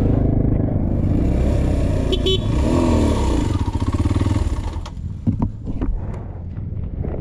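Dual-sport motorcycle engine running as the bike rides a rough dirt trail, its pitch sweeping up and back down near the three-second mark, with a short high beep about two seconds in. Around five seconds in the engine drops back, and sharp knocks and clicks from the bike over the rough ground follow.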